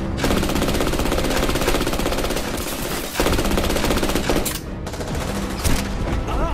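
Automatic rifle fire in long rapid bursts: one burst of about three seconds, a split-second break, then a second burst that thins out into sparser shots a little before the five-second mark.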